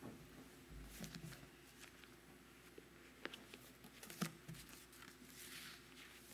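Near silence: quiet room tone with a few faint scattered clicks and a soft rustle.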